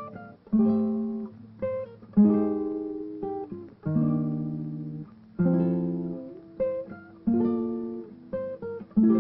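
Background music on an acoustic guitar. Chords are struck about every second and a half, each ringing out and fading, with a few single notes between them.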